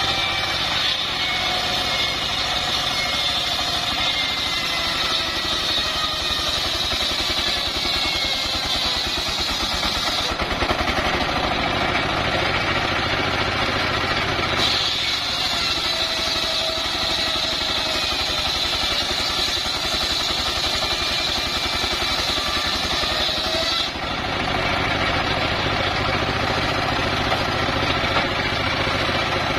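Single-cylinder diesel engine running steadily, driving a homemade circular saw bench whose blade rips planks from a log. A high saw whine sounds over the engine, drops out about ten seconds in, returns a few seconds later, and stops again near the end.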